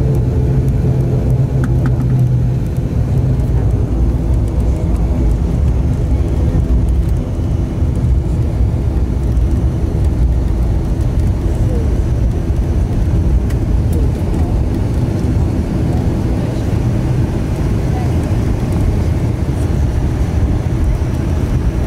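Cabin noise of an ATR 72-600's Pratt & Whitney PW127 turboprops running at low power while taxiing: a steady drone with several hum tones, where a strong low tone drops away about two and a half seconds in.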